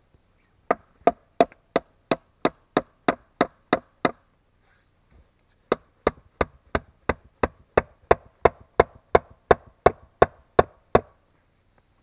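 A tool striking wood in two quick, even runs of blows, about three a second, with a pause of a second and a half about four seconds in: work on a frame of peeled birch poles.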